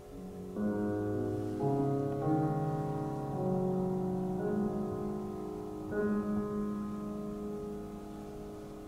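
Yamaha grand piano played in a slow, quiet passage. Chords are struck about half a second and a second and a half in, with further notes near the middle and around six seconds, each left to ring and slowly die away.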